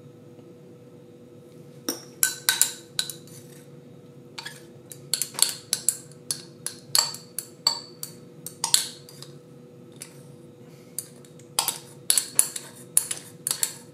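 Glass stirring rod clinking and scraping against the inside and rim of a glass beaker as thick gel is scraped out into a glass jar: quick irregular runs of sharp, ringing glass clinks, starting about two seconds in, with a short lull near the end.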